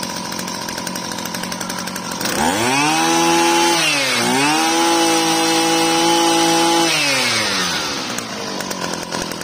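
Kioritz (Echo) 315 brush cutter's 31 cc two-stroke engine idling, then revved up about two seconds in. The revs dip briefly, are held high for a few seconds, and drop back to idle near the end.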